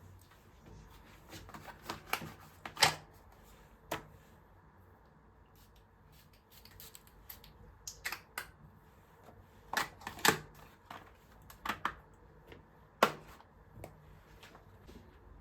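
Irregular sharp clicks, taps and knocks of small objects being handled and set down, with a handful of louder knocks scattered among softer ticks.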